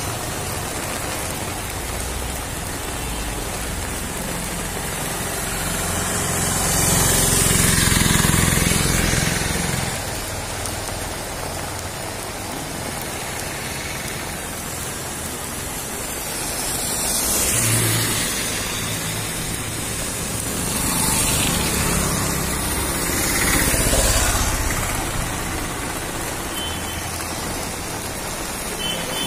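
Heavy rain falling steadily on a wet street, with motor vehicles passing on the wet road several times: the loudest pass swells about seven to nine seconds in, with others near eighteen, twenty-one and twenty-four seconds.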